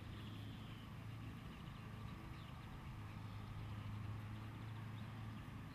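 Faint outdoor background: a steady low hum under a light even hiss, with no distinct event.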